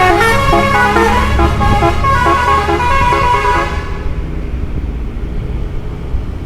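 Bus telolet horn, a multi-tone musical air horn on an Indonesian bus, playing a quick run of stepping notes that stops about four seconds in. After that only a low steady engine rumble and road noise remain.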